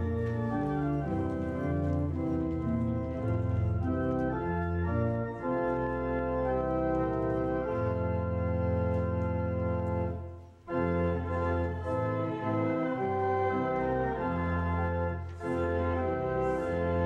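Church organ playing the hymn tune in full, sustained chords that change every half second or so, with a short break between phrases about ten and a half seconds in.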